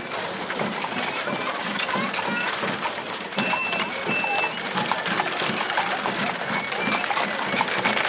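An animal-drawn hay cart on wooden spoked wheels rolling past on asphalt: a steady clatter of hooves and wheels under the chatter of a roadside crowd, with short high beeps now and then.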